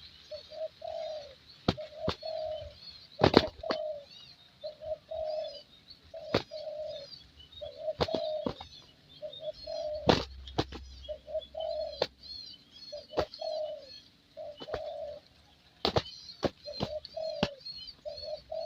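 Spotted dove cooing over and over, a steady series of short low coos about one a second. Small birds chirp faintly and high in the background, and there are several sharp clicks or knocks, the loudest about three and ten seconds in.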